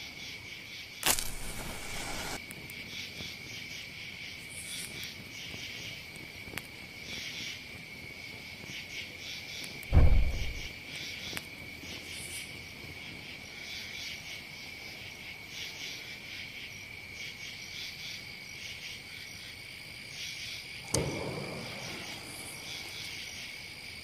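Insects singing steadily in a high, even drone, with a few dull thumps about 1, 10 and 21 seconds in, the loudest around ten seconds.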